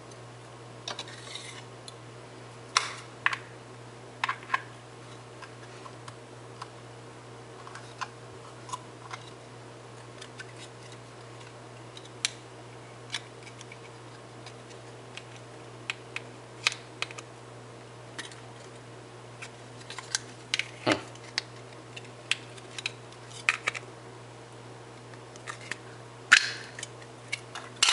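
Hard plastic parts of a snap-fit 1:200 Flight Miniatures airliner model clicking and tapping as they are handled and pressed together, scattered sharp clicks throughout, over a steady low hum.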